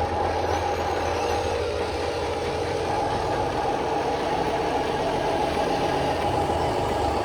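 A steady, engine-like running sound at an even pitch, with a constant low hum beneath a higher drone, like a vehicle idling.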